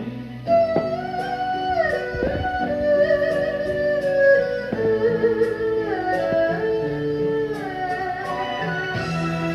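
Instrumental break of a Taiwanese-language waltz song: a held, sliding melody line over steady band accompaniment.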